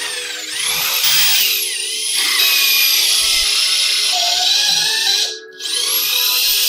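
A handheld power tool's motor whining as it cuts, its pitch sliding up and down. It cuts out briefly about five seconds in and spins back up with a rising whine. Background music plays underneath.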